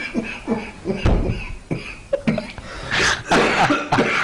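A man laughing hard, in quick short bursts that turn into louder, breathy gasps near the end.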